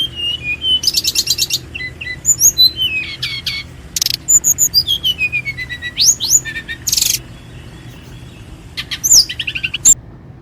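Birds singing: a busy mix of quick chirps, rapid trills and sweeping whistled notes, over a steady low background hum. The birdsong cuts off suddenly near the end.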